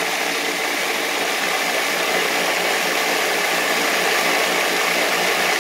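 Vibratory rock tumbler running steadily: the hum of its motor under the noise of the rocks and media shaking in the bowl.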